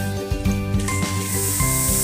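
Background music with a steady beat; from about a second in, a steady high hiss of milk heating to a boil and foaming in a steel pan on a gas stove comes in under it.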